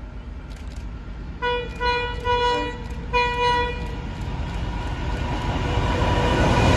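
Diesel locomotive horn sounding as an NR class locomotive approaches hauling a passenger train: a run of short blasts about a second and a half in, then a longer blast about three seconds in. After the horn the locomotive's engine and the train's rolling noise grow steadily louder as it draws near.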